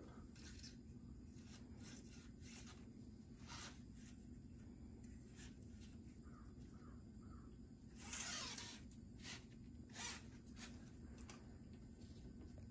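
Near silence: room tone with faint light clicks and rustles from a fishing rod being flexed and handled, and a brief louder rustle about eight seconds in.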